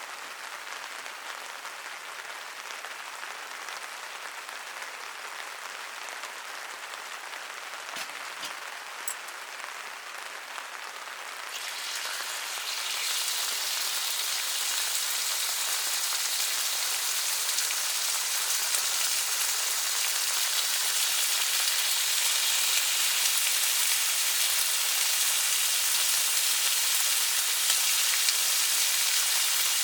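Steady rain falling, with a couple of faint clicks about eight seconds in. The rain grows louder and hissier about twelve seconds in.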